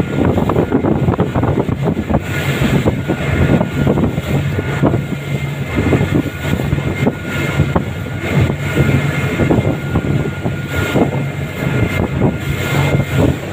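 Twin 300 hp outboard motors running steadily at high speed, a continuous engine drone under the rush of wind and churning water from the wake.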